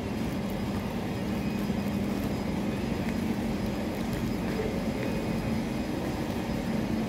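Steady low rumble with a constant hum, the background noise of an underground metro station platform.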